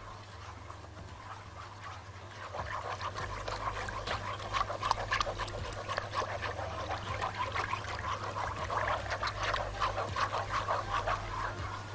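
Wire whisk beating powdered béchamel mix into milk in a metal pot, to dissolve it fully. Rapid, uneven rattling and scraping strokes of the wires against the pot start about two and a half seconds in and keep going.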